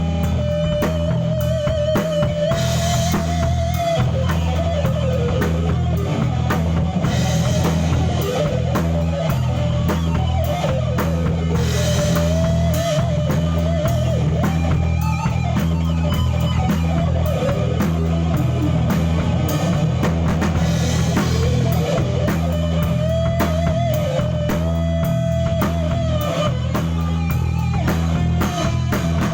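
A live band playing a song: a drum kit keeping a steady beat under bass and guitar, with a melody line that bends and slides on top.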